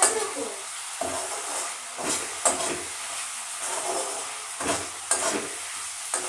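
Onion, garlic and sauce masala sizzling in a metal kadai while a wooden spatula stirs it, scraping and knocking against the pan every second or so over a steady sizzle.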